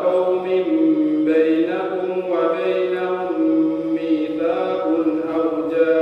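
A young man's solo voice reciting the Quran in a melodic chanted style, holding long drawn-out notes that step up and down in pitch.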